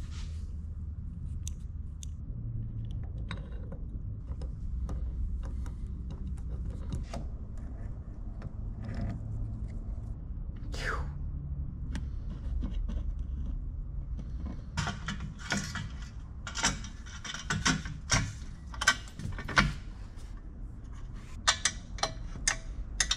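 Small metal parts and tools being handled, clicking and rattling over a low steady rumble, with a busier stretch of clatter past the middle and more clicks near the end.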